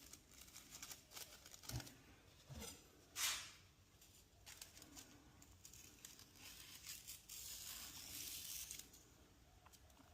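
Quiet handling sounds: scattered light clicks and a few brief rustling, tearing-like swishes, the loudest about three seconds in and a longer one near the end.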